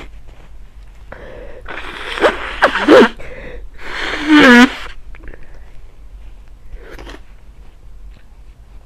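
A person with a head cold sneezing twice: the first comes after a few catching breaths, about two to three seconds in, and the second, with voice in it, about four and a half seconds in.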